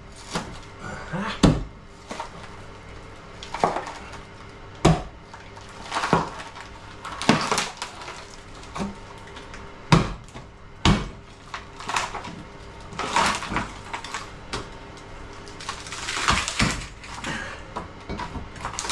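A pry bar jabbed and levered against a wooden door frame held in with filler and expanding foam: sharp knocks about once every second or so, with wood cracking and splintering between them and a longer stretch of crackling near the end.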